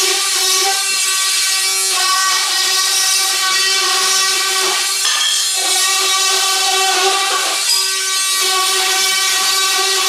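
Oscillating multi-tool cutting into a wooden door jamb, plunging out the recess for a jamb switch box. A steady high-pitched buzz that wavers briefly a few times as the blade is worked into the wood.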